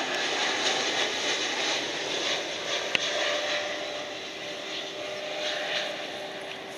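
Jet airliner's engines running, the rush of noise slowly fading and a steady hum standing out from about halfway. A single sharp click about three seconds in.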